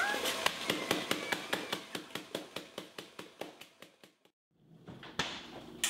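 Metal meat mallet pounding Oreo cookies wrapped in aluminium foil on a stone countertop to crush them into crumbs: a quick, even run of blows, about five a second, growing fainter, then after a brief pause two more blows near the end.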